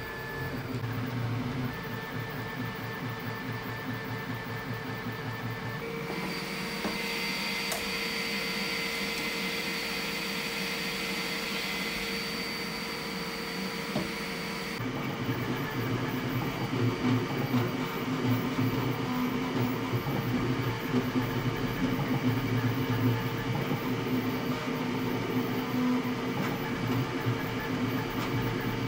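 Creality K1 Max 3D printer running while printing, a steady mechanical whir with a few steady tones. From about six to fifteen seconds in the sound turns hissier, with a high steady tone and less low hum, then returns to the lower whir.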